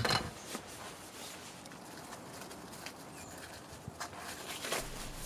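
Handling of plastic MC4 solar connectors and a small plastic unlocking tool on a wooden workbench: one sharp click right at the start, then a few faint taps and knocks.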